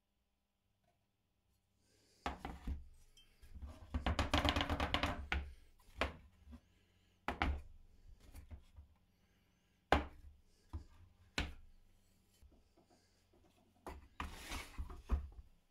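Wooden jig parts being handled in a workshop: a string of sharp wooden knocks, with two longer rattling, scraping spells, one a couple of seconds in and one near the end. No power tool is running.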